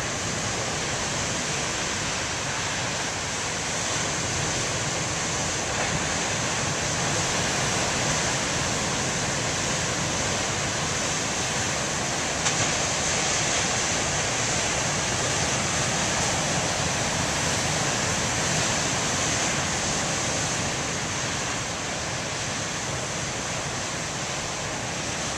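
Large ocean waves breaking in surf, a continuous wash of water noise that swells and eases slightly, with some wind on the microphone.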